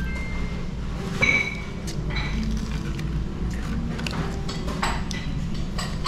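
Tableware clatter: chopsticks clicking against dishes, with a dish or glass clinking and ringing briefly about a second in, over a steady low room hum.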